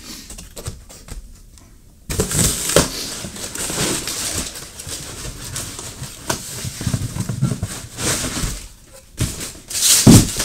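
A cardboard box and its packing being handled and unpacked: irregular rustling and scraping with scattered knocks, starting about two seconds in, and a louder thump near the end.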